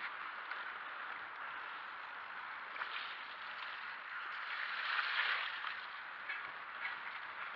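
Full-suspension mountain bike's tyres rolling over a wet dirt track, then splashing through a puddle about five seconds in, with a louder swell of slosh and spray.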